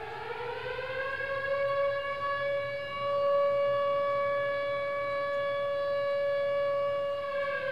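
Outdoor tornado warning siren winding up in pitch over the first second or so, then holding one steady wail, and beginning to wind down near the end.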